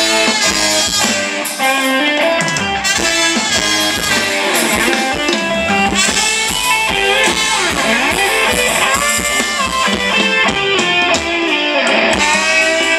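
Live band playing Thai ramwong dance music: a wavering guitar lead over a steady drum-kit beat, loud and without a break.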